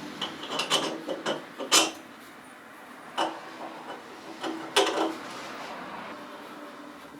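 Irregular knocks, clicks and light scraping of hard objects being handled, with louder knocks about two seconds and five seconds in.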